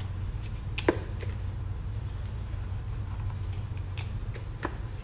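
Jute mallow (saluyot) leaves being picked off their stems by hand: a few short, sharp snaps and light rustling, the loudest about a second in, over a steady low hum.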